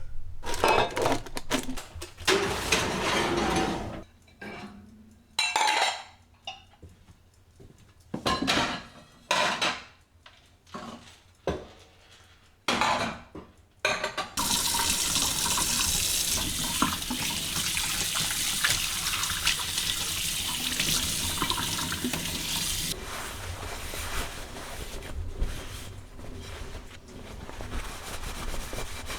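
Washing up at a kitchen sink: dishes and cutlery clatter in short bursts, then the tap runs in a steady stream for about nine seconds from around halfway, and quieter water sounds continue after it.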